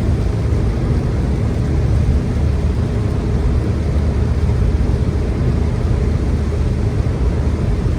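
Car driving at speed on a wet motorway: a steady low rumble of tyre and road noise with the engine, even throughout.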